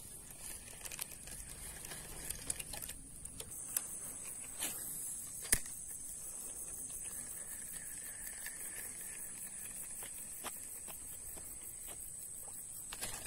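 Faint rustling and scattered light clicks of tall grass and a fishing rod being moved through it, over a steady high-pitched hiss, with a couple of sharper knocks about five seconds in.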